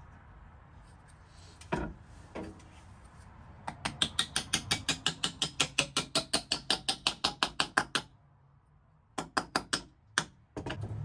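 Hammer tapping rapidly on the splitting maul's head and handle end, about five light blows a second for several seconds, after two single knocks. It stops briefly and resumes with a few more taps near the end, seating the wedge and head on the new wooden handle.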